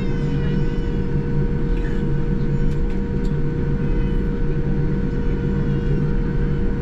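Steady cabin noise inside a Boeing 787-9 on the ground: a low rumble with a constant whine running under it.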